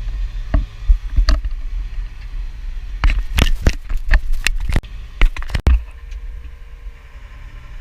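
Massey Ferguson tractor engine running with a steady low rumble. About three seconds in comes a run of sharp knocks and clatters that ends suddenly near six seconds, after which the rumble goes on more quietly.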